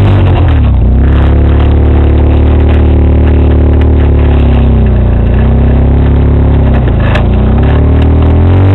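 Engine of an off-road motorcycle riding a forest single-track trail, running loud and steady. Its pitch dips and rises again a few times, about half a second, four and seven seconds in, as the throttle is eased off and reopened.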